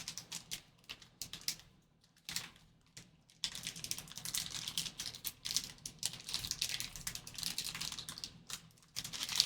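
A trading-card pack wrapper being handled and torn open, with quick crinkling and clicking that gets much denser about three and a half seconds in.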